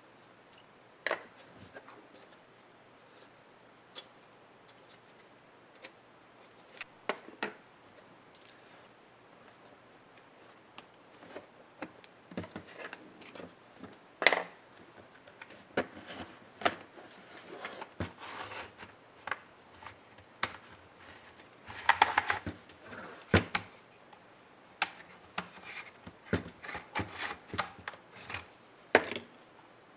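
Dell Inspiron 15 7537 laptop being taken apart by hand: scattered clicks, taps and scrapes of plastic and metal parts, sparse at first and busier from about the middle on, with a longer scraping spell about two-thirds of the way through.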